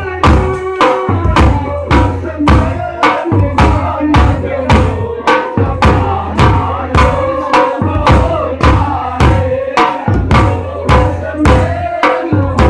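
Several drums played together in a steady, unbroken beat of about two to three strokes a second: a large barrel drum struck with a curved stick and hand-held frame drums. A steady held tone runs underneath the drumming.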